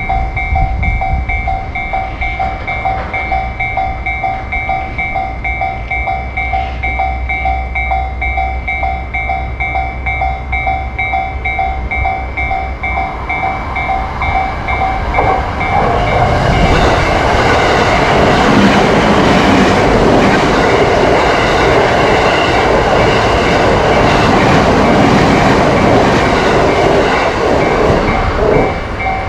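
Japanese railroad-crossing warning bell ringing with a rapid, repeating two-tone ding. Partway through, a train approaches and passes through the crossing, and its running noise is the loudest sound until near the end.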